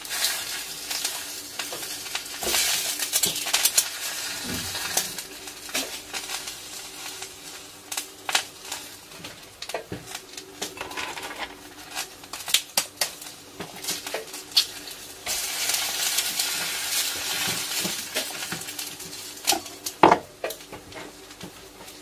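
Food sizzling and frying in a pan while it is stirred, with many clicks, scrapes and clinks of a utensil against the pan; the sizzle swells twice, and there is a sharp knock about two seconds before the end. A faint steady hum runs underneath.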